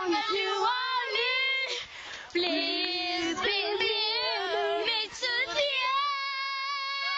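Young children singing with high voices, broken briefly about two seconds in, then holding one long steady note near the end.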